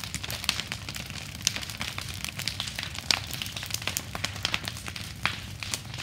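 Bonfire of brush and branches burning, with frequent irregular sharp crackles and pops over a low steady rumble.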